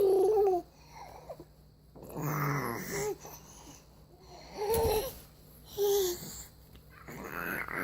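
A baby babbling, a string of about five short pitched vocal sounds a second or so apart.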